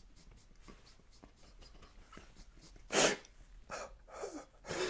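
Stifled laughter: faint for the first few seconds, then a sudden loud burst of breath about three seconds in, followed by a few shorter breathy bursts near the end.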